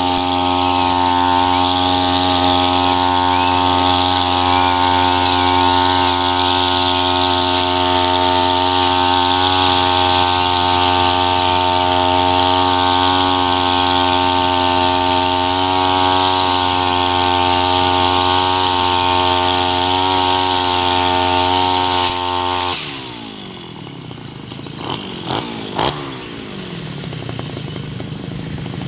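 Backpack brush cutter's 32 cc two-stroke Tabata engine running at a steady high speed, spinning an eight-line nylon trimmer head through tall grass. About three-quarters of the way in, the throttle is let off: the engine drops and slows toward idle as the head spins down, with a few clicks.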